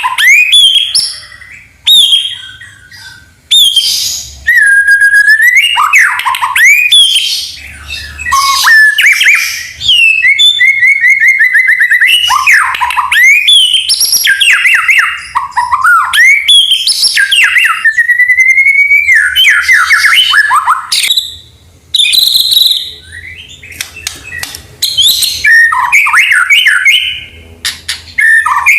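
White-rumped shama singing a loud, varied song of clear whistled phrases, with fast rising and falling glides and short pauses between bursts.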